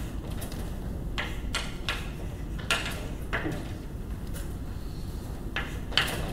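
Chalk writing on a blackboard: short scratchy strokes and taps in small clusters, with a gap of about two seconds in the middle, over a steady low room hum.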